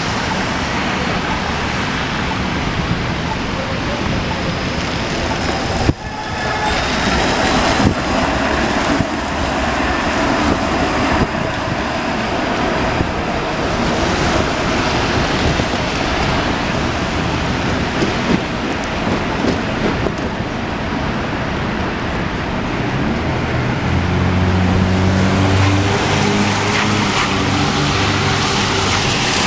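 City street traffic on rain-wet roads: a steady wash of passing cars and tyre noise. A vehicle's low engine note joins near the end.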